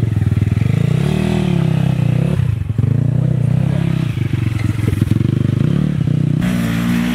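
Dirt bike engine revving as the bike rides past, its pitch rising and falling with the throttle, with a short drop in revs about two and a half seconds in.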